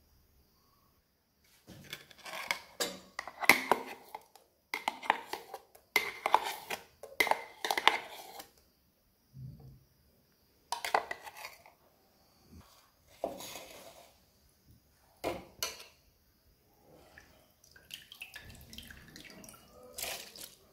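Stainless steel ladle and vessels clinking and scraping, steel on steel, as idli batter is scraped out of a mixer-grinder jar into a steel pot. The clatter comes in dense bursts for several seconds, then as separate knocks and scrapes.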